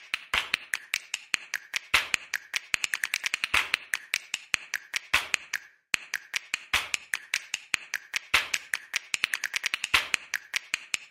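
Quick, irregular clicks and taps of household items being handled and dropped into a kitchen trash can, coming in runs of several a second with a brief pause near the middle.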